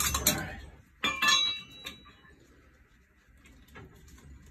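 Light metallic clinks and knocks from handling tools and metal parts. The loudest, about a second in, rings briefly, and a few faint taps follow.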